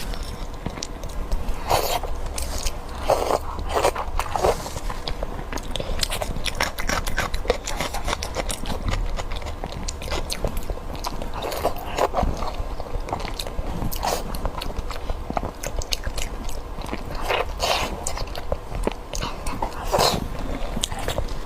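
Close-miked eating: a person biting and chewing crunchy food, with irregular crunches and mouth clicks throughout and a few louder bites.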